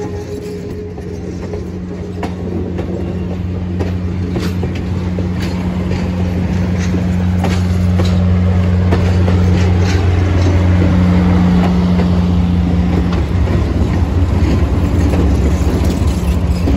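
Diesel locomotives at the rear of a passing passenger train: a steady low engine drone that grows louder as they come alongside. Wheels click over the rail joints throughout.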